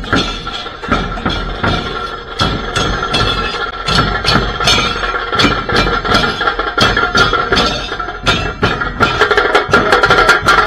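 Large double-headed procession drums beaten with sticks and brass hand cymbals clashed together in a steady beat. The cymbals ring on between strikes, and the playing grows louder near the end.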